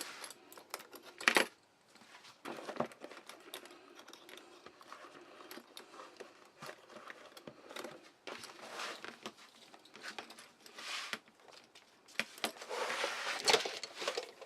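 Scattered metallic clicks and jingles with rustling, from a loaded leather tool pouch and its hardware being handled and put on, with a meter clipped on by an S-biner. One sharper click comes about a second in.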